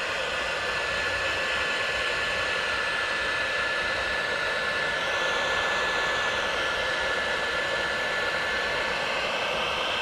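Electric heat gun running steadily: its fan blowing air with one steady high whine over the rush. It is heating up to shrink a heat-shrink ring terminal onto a wire.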